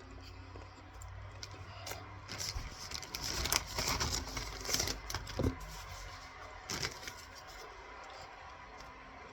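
Cornstarch being chewed: a run of dense crunching and crackling between about two and five and a half seconds in, with a short squeak near the end of it and one more crunch about seven seconds in.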